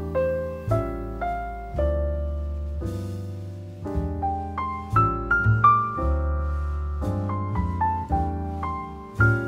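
Background piano music: a slow, gentle melody of single notes over held bass notes.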